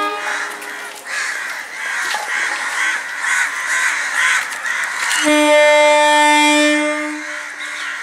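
Crows cawing repeatedly, about two calls a second. About five seconds in, a train horn gives one long steady blast lasting about two seconds, the loudest sound.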